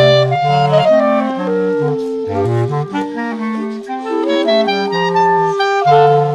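A clarinet quartet (four Ayson clarinets) playing together live. It plays several interwoven lines with quick note changes over a low bass part.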